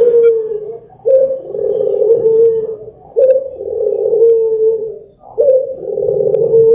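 Puter (Barbary dove) cooing: a low, rolling coo repeated about every two seconds, each opening with a short higher note and dropping into a long held tone, three calls starting about one, three and five seconds in.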